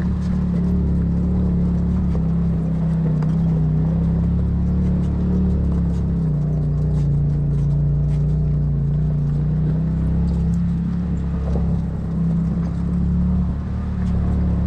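Polaris RZR side-by-side's engine running steadily as the vehicle drives over a rocky trail, a low drone that drops a little in pitch about six seconds in and rises again near the end.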